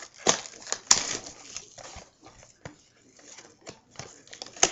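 Crinkling and scraping of packaging with scattered sharp clicks as a sealed trading-card box is worked open by hand.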